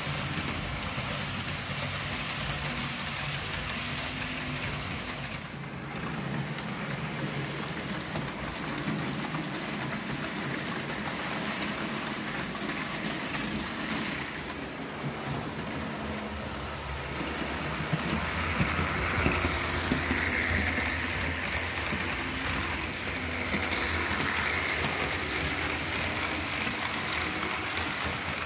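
Trains running along the track, a steady rolling rumble that swells somewhat in the second half.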